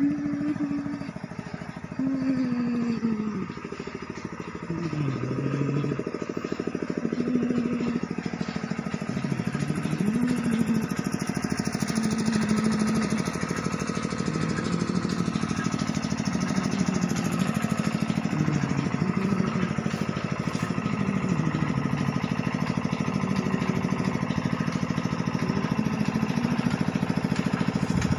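Small engine driving a sugarcane crusher, running steadily with a fast even beat, growing louder over the first several seconds and then holding level.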